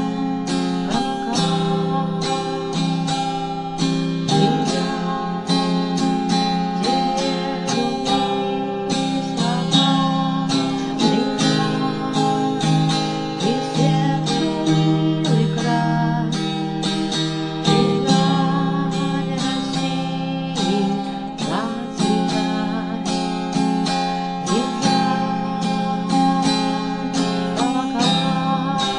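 Acoustic guitar strummed in a steady, regular rhythm of chords, the accompaniment of a song.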